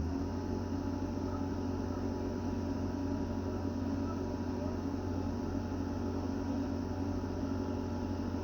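Bobcat skid-steer loader's engine running steadily outside, heard through window glass as an even, unbroken drone.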